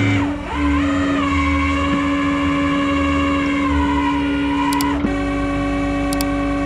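Rollback tow truck's winch and engine running under load as the cable pulls a stuck minivan out of snow: a steady mechanical whine whose pitch dips briefly about half a second in, then holds. About five seconds in the sound shifts, and a few sharp clicks follow near the end.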